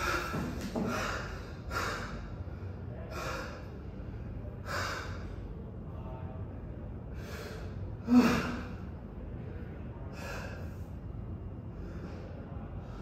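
A person breathing hard in ragged gasps after a bout of stage fighting, about one breath a second at first and then more spaced out, with one sharper, louder gasp about eight seconds in; the breaths grow fainter near the end.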